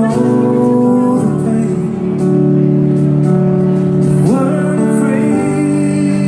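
Live band playing a slow country ballad: electric guitars over sustained chords, with a man singing. Near the start and about four seconds in, a note glides upward.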